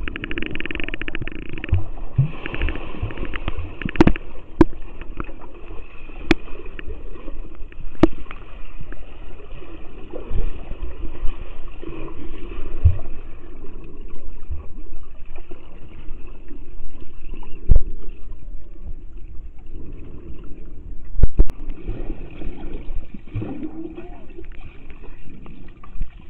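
Muffled underwater pool sound picked up by a waterproof camera's microphone while submerged: a dull, steady rush of moving water with occasional sharp knocks.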